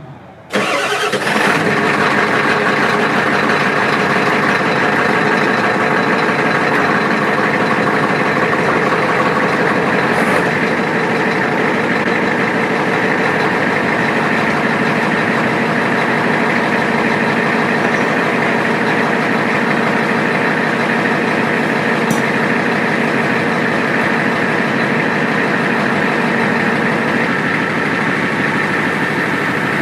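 Dump truck's engine starting about half a second in, then idling steadily.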